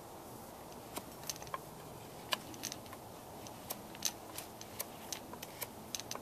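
Knife whittling a wooden stick: short, sharp cuts at uneven intervals, about two a second.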